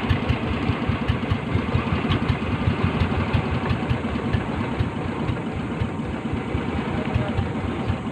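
Small fishing boat's engine running steadily with a rapid, even low beat.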